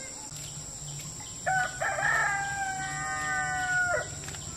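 A rooster crowing once: one long call of about two and a half seconds, starting about a second and a half in and cutting off sharply.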